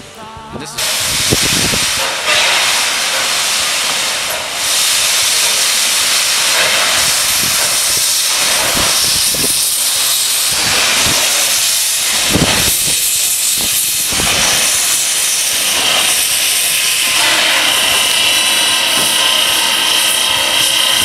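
Steam locomotive No. 93, a 2-8-0, hissing loudly as it eases out of the engine house, with steam jetting from the front of the engine by its cylinders. The hiss starts suddenly about a second in and stays steady, with a few heavier low chuffs under it.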